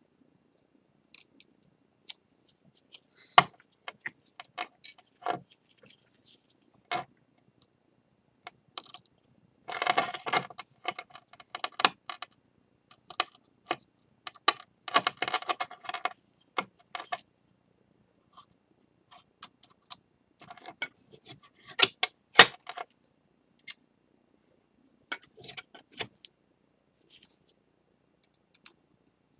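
Scattered clicks and clinks of small hard objects being handled and set down on a work surface. There are two short spells of rattling about 10 and 15 seconds in, and a sharp knock a little after 22 seconds.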